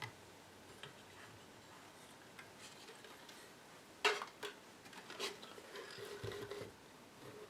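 Light handling noises of parts on a workbench: a sharp click about four seconds in, a couple more small clicks, then a few seconds of faint rubbing or scraping.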